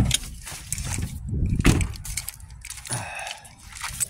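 Handling noise in a car's engine bay: a sharp knock at the start, then scattered knocks and clicks as the wiring-harness plugs are reached for and moved, over a low rumble.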